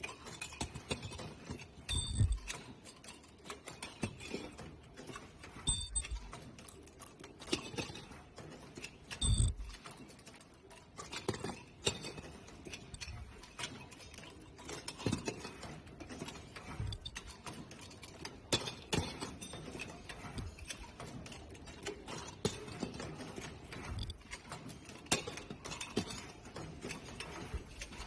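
Irregular mechanical clicking and clattering, with a low thump every few seconds.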